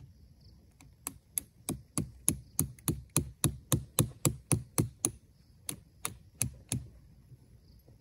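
A small metal hammer driving a metal tent peg into the ground: about nineteen sharp strikes, roughly three a second, with a short pause about five seconds in.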